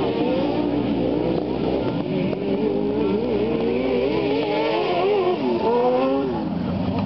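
Racing ride-on lawnmower engines running hard, their overlapping notes wavering up and down as the mowers race by close at hand. The pitch rises as they approach and falls away about six seconds in as they pass.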